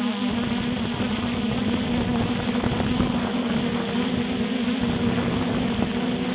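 Multirotor drone's motors and propellers running steadily, a constant buzzing whine with a rough low rumble under it, heard from the camera carried on the drone.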